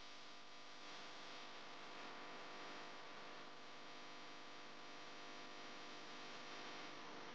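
Faint steady hum with hiss, close to silence.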